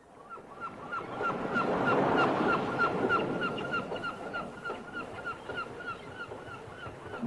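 A bird calling over and over in short, honk-like notes, about three to four a second, over a rushing background noise that swells in the first couple of seconds and then eases off.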